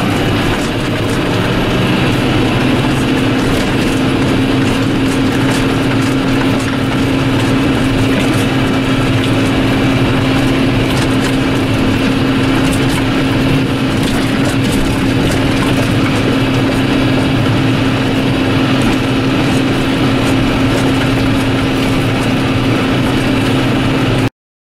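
John Deere 7530 tractor's six-cylinder diesel engine running steadily under load, with a constant drone. The sound stops abruptly near the end.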